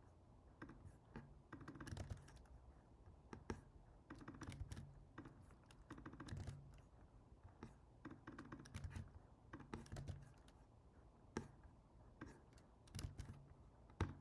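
Faint typing on a computer keyboard, keystrokes coming in short runs with pauses between them.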